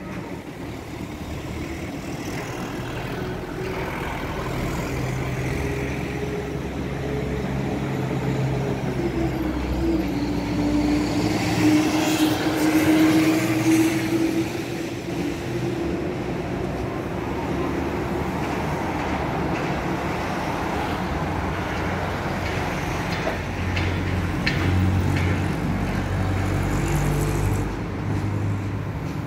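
Road traffic passing on a nearby road: cars and trucks driving by, their engine and tyre noise swelling and fading. About a third of the way in, one passing vehicle's engine note slides down in pitch. The traffic is loudest a little before the middle.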